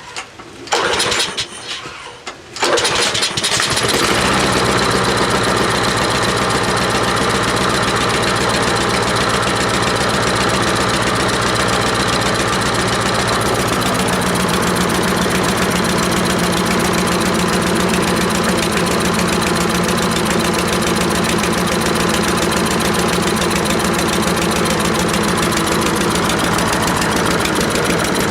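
Troy-Bilt walk-behind lawn mower engine sputters briefly, then catches about two and a half seconds in and runs steadily. This is the first start after its gummed-up carburetor bowl and plugged main jet were cleaned.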